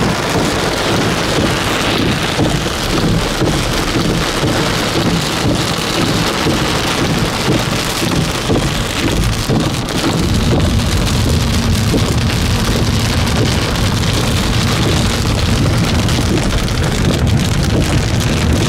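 Heavy rain pouring down, a loud, dense, steady hiss of rain striking surfaces. About halfway through, a steady low rumble comes up underneath it.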